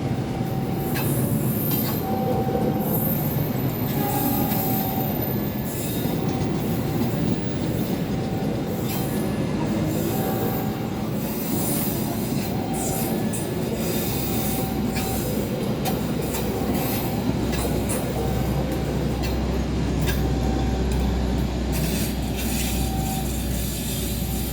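Passenger train running past on the rails: a steady loud rumble and clatter of wheels, with short wheel squeals every second or so and a deeper rumble building in the latter part.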